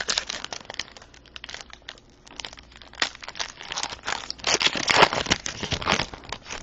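Crinkling and tearing of a trading card pack's wrapper being opened, a run of irregular crackles that is loudest about five seconds in.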